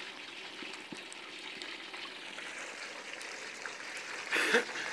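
Steady sizzling hiss of a turkey deep-frying in hot oil in an aluminium stockpot over a propane burner. A brief vocal sound comes near the end.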